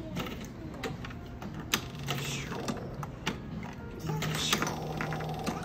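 Small balls clicking irregularly as they drop through the pins of a B.B. Man ball-drop arcade machine, with music playing behind.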